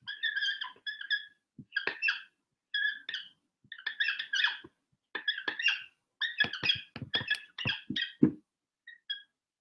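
Dry-erase marker squeaking on a whiteboard as handwritten letters are written: a string of short squeaks at a few fixed pitches, one per stroke, with a few soft knocks among them.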